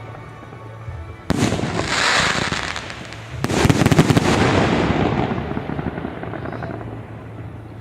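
Aerial fireworks shells bursting: one sharp burst about a second in, then a louder one about three and a half seconds in, followed by dense crackling that dies away over a couple of seconds.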